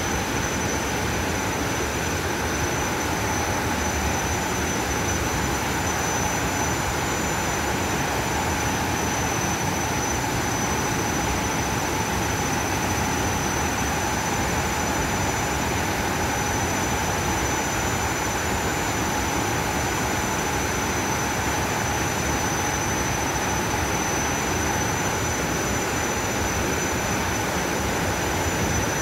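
A large waterfall's falling water, a steady, unbroken rush of noise.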